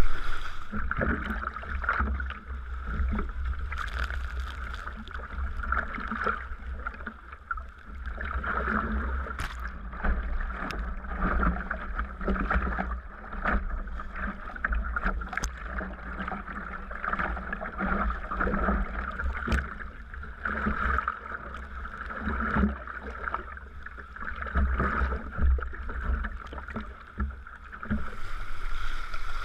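Sea kayak being paddled: paddle blades dipping and water splashing against the hull, swelling about every two seconds, with light knocks and a steady low rumble underneath.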